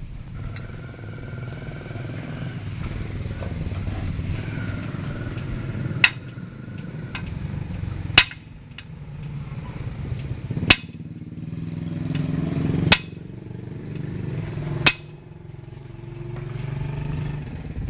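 Five sharp knocks about two seconds apart, struck during a motorcycle engine teardown, over a steady low motor hum.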